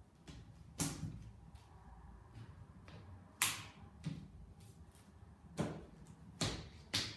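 Sharp plastic clicks and knocks from the joint of a plug-together segmented hula hoop with push-button connectors, as the segments are pressed and worked into each other by hand. There are about five clicks, the loudest about three and a half seconds in, with soft handling rustle between them.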